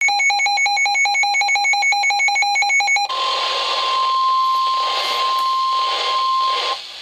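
A weather radio receiver's electronic alert beeping rapidly, about six beeps a second, for about three seconds. Then the NOAA Weather Radio 1050 Hz warning alarm tone comes in: one steady tone over radio hiss, which cuts off shortly before the voice message.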